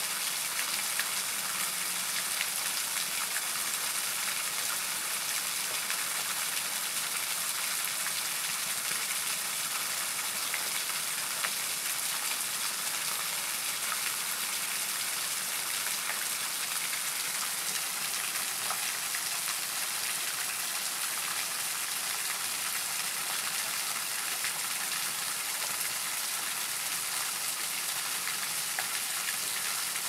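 Small waterfall: thin strands of water and drips falling from a rock overhang and spattering onto wet rock below, a steady high hiss with fine pattering.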